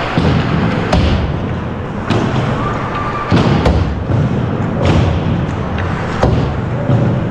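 Ice hockey practice on the ice: sharp clacks of sticks striking pucks, about one a second, over a steady rumbling noise of skating.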